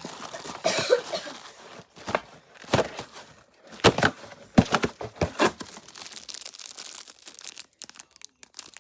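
Snack packaging being handled, crinkling and crackling in a string of irregular sharp crackles.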